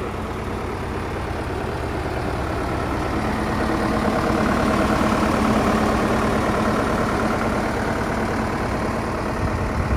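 Gregoire G85 grape harvester's diesel engine idling steadily, getting a little louder from about three seconds in.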